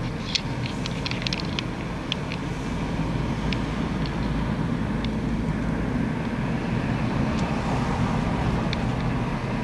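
Steady road and engine rumble heard from inside a car's cabin as it drives slowly, with a scatter of light clicks in the first couple of seconds and a few more later.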